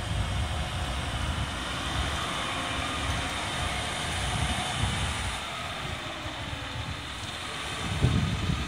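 Heavy fire truck's diesel engine running as the truck drives slowly past at close range.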